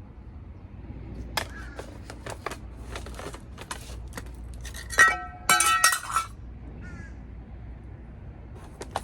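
Hard objects being handled and knocked together: scattered clicks and knocks, then a loud clinking clatter that rings about five seconds in.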